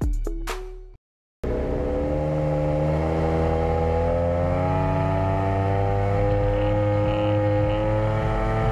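Music fades out in the first second. After a brief silence, a boat engine runs steadily, its pitch rising slowly.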